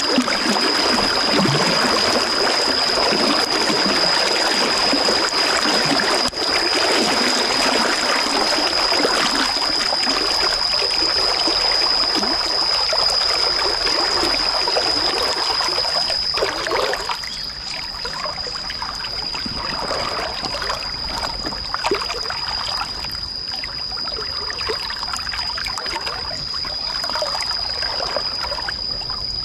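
Stream water running and trickling over rocks, steady and fairly loud, easing somewhat about halfway through. A steady high-pitched whine sounds over it throughout.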